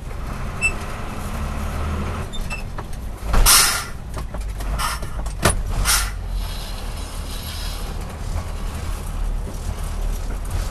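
Engine and cab noise of a GMC 6000 medium-duty manual truck, heard from inside the cab while driving: a steady low hum, with a brief loud rushing noise about three and a half seconds in, then a sharp click and another short rush a couple of seconds later.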